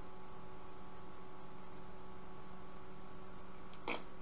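Steady electrical hum made of several steady tones, with one short sharp click near the end.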